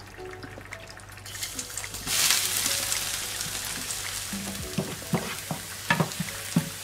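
Chopped garlic sizzling in hot oil in a nonstick pan; the sizzle breaks out about two seconds in as the garlic hits the oil. From about the middle on, a wooden spatula stirs it, knocking and scraping against the pan over the sizzle.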